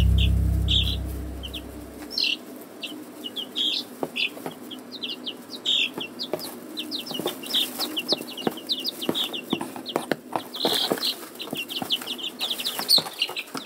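Week-old chicks peeping: a continual run of short, high cheeps, with soft taps and rustles among them. A low rumble fades out over the first two seconds.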